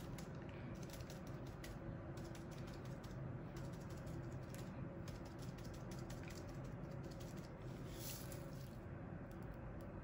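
Quick, irregular light clicks and crinkles, coming in clusters with short pauses, from a plastic piping bag being squeezed to drizzle melted chocolate, over a steady low hum.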